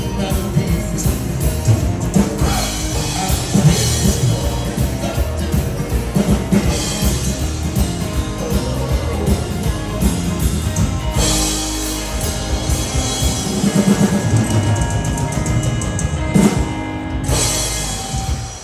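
A live Scandinavian dansband playing through a PA: drum kit, electric guitars, bass and keyboard in a steady up-tempo beat. The music drops away right at the end.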